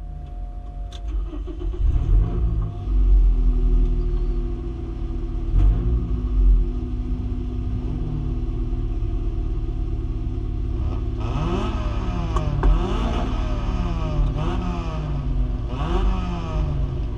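Mini figure-8 race car's engine heard from inside its stripped cabin, idling with the throttle blipped a few times. Near the end it is revved up and down about five times in quick succession.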